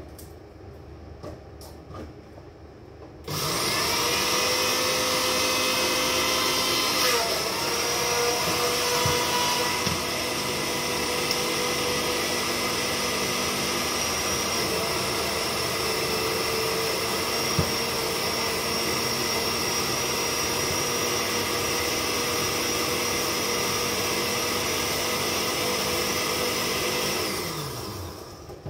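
Electric countertop blender running, blending a parsley, mayonnaise and yogurt sauce. The motor starts abruptly a few seconds in, runs steadily with a steady whine, and winds down in pitch as it is switched off near the end.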